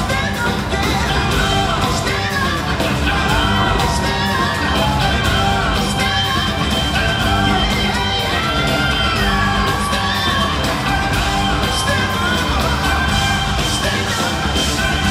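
Live band music with a man singing lead over keyboards and drums, and the crowd yelling along.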